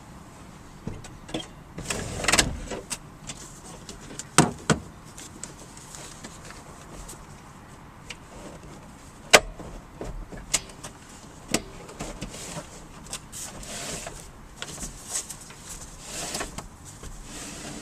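A van's swivel driver's seat being handled and turned around, with scattered clicks, knocks and rubbing noises from the seat and its swivel base.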